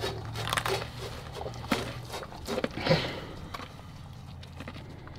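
A person chewing a mouthful of dry dog food kibble, with irregular crunches that are loudest about three seconds in and then die down.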